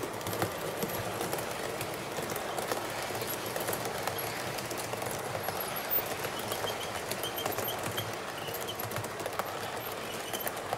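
Model train coaches and wagons rolling past on the layout's track, their metal wheels clicking in a dense, steady clatter over rail joints and points.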